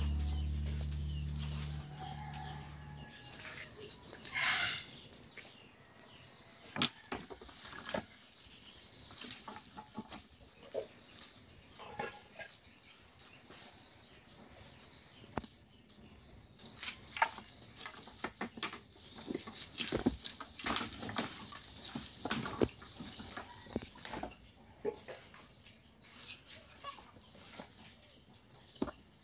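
Chickens clucking among scattered light knocks and clicks, with background music fading out in the first few seconds.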